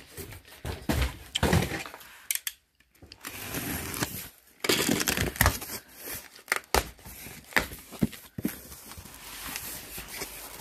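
Cardboard shipping box being opened by hand: its flaps are pulled open and folded back, with irregular rustling, scraping and sharp knocks of the cardboard.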